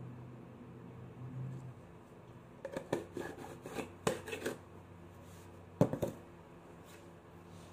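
Hard plastic flour container being handled over a dough board: a run of taps and knocks as flour is shaken out of it, then a sharp double knock about six seconds in as it is put down.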